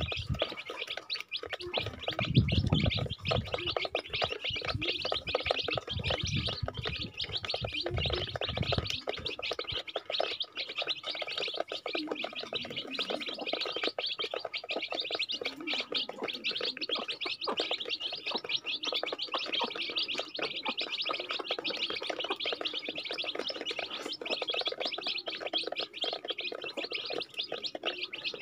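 Many chicken chicks peeping continuously in a dense overlapping chorus of short, high chirps. Low rumbles come and go during roughly the first nine seconds.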